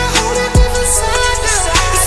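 R&B/hip hop track: two deep bass hits, about a second apart, each sliding down in pitch, over a held synth note and crisp high percussion.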